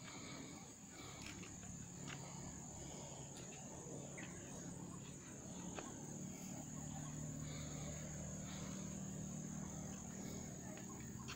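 Insects droning in one steady high-pitched tone, with a low steady rumble underneath that grows a little louder about halfway through.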